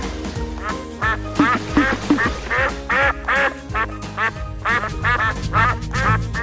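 Duck quacking in a quick run of short quacks, about three a second, over a steady background music track.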